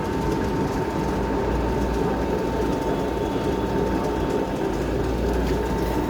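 Metal lathe running steadily, with a constant hum and a thin steady whine from its drive and gears.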